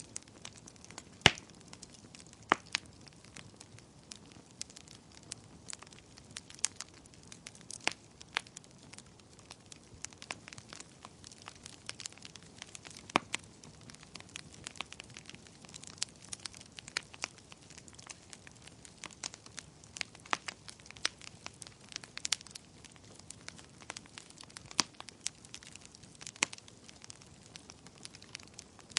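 Fire crackling: irregular sharp pops and snaps over a soft steady hiss, the loudest pop about a second in.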